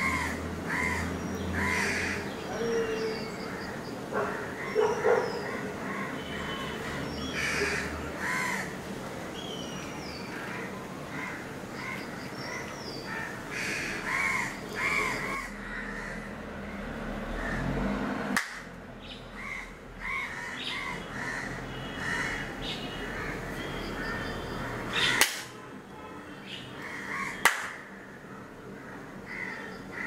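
Several birds calling and chirping over one another, with short arched calls and high whistles, and a few sharp clicks in the second half.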